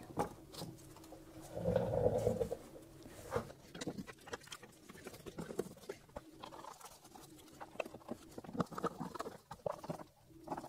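Faint, irregular small clicks, taps and scrapes of gloved hands and a hand tool working at the radiator and coolant hoses, with one louder muffled sound about two seconds in.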